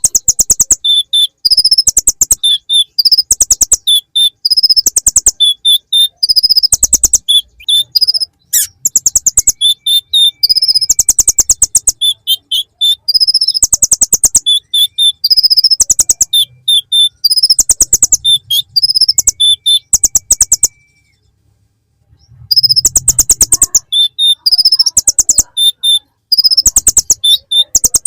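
Kolibri ninja (konin) sunbird singing its song filled with mimicked bar-winged prinia (ciblek) phrases: loud, very high-pitched rapid trills and chirps repeated phrase after phrase, with a brief pause about 21 seconds in.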